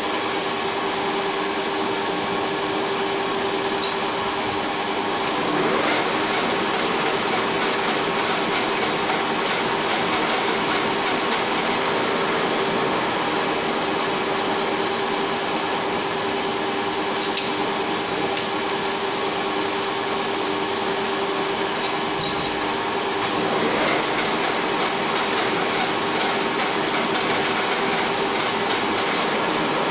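1K62 screw-cutting lathe running steadily: a dense mechanical whirr with steady whining tones, unchanging throughout.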